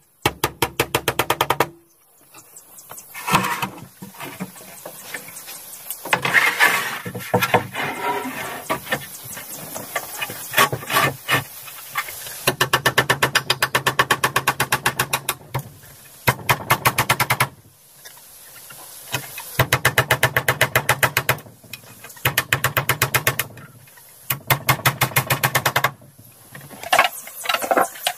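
Bursts of rapid, evenly spaced woody knocking or tapping, each run lasting one to three seconds with short pauses between: hand work on wood.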